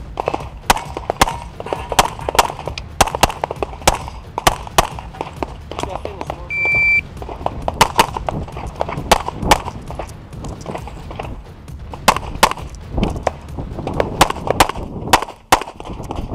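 Rapid pistol fire from a CZ Shadow, the shots mostly in quick pairs with short pauses between them. A brief electronic beep sounds about six and a half seconds in.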